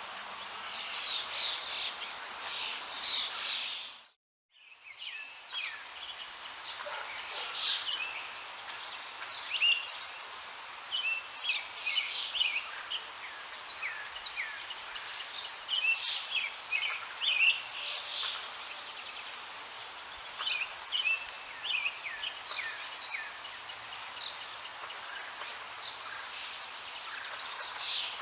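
Several songbirds singing and chirping, many short whistled notes, over a steady background hiss. The sound cuts out to silence for about half a second around four seconds in, then fades back.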